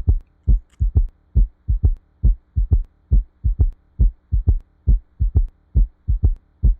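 Recorded heart sounds in a three-beat gallop rhythm, lub-dub-dub, about eight cycles with a faint steady hum under them. A third heart sound (S3) follows the first and second sounds right at the start of diastole: the S3 gallop, made when a left ventricle that cannot stretch, as in dilated cardiomyopathy, vibrates during rapid filling.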